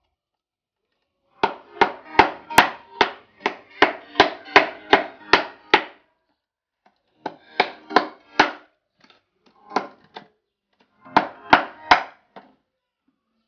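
Knife scraping the scales off a whole fish on a wooden board: quick sharp strokes, about three a second, in four runs with short pauses between.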